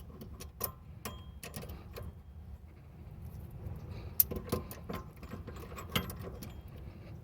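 Irregular metallic clicks and light knocks of hand tools and brake parts being handled at a rear brake caliper, with a low steady hum.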